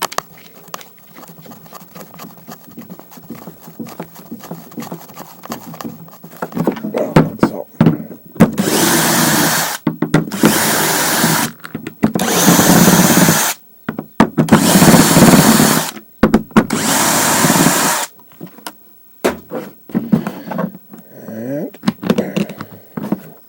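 Cordless electric screwdriver run in five short bursts of about a second each, backing out screws, with small handling clicks before and after.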